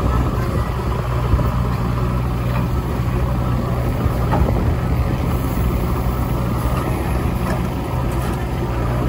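JCB 3DX backhoe loader's diesel engine running steadily, a constant low drone, while the backhoe arm digs and swings a bucket of earth.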